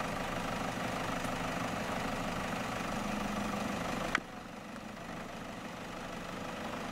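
Engine of a Toyota Hilux pickup camper running steadily at low revs as it crawls over a steep rocky track. A sharp click about four seconds in, after which the sound is a little quieter.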